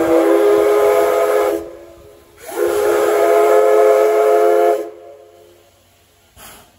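Steam whistle of the C11-class tank locomotive C11 207 blowing two long blasts, about a second apart, the second a little longer than the first, with a hiss of steam under the tone.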